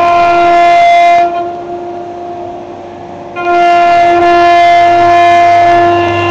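CNC router spindle carving grooves into an MDF door panel: a steady high whine with the hiss of the bit cutting. The cutting noise drops away for about two seconds just after the start, leaving the whine, then comes back loud.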